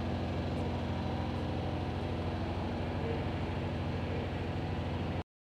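A steady, low mechanical hum with several held tones. It cuts off abruptly near the end.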